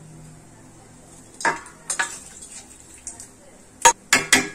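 Metal pressure cooker pot tipped over a metal cooking pot, clanking against its rim as the boiled mutton is emptied into the masala. There are a couple of softer knocks, then three sharp, loud clanks in quick succession near the end.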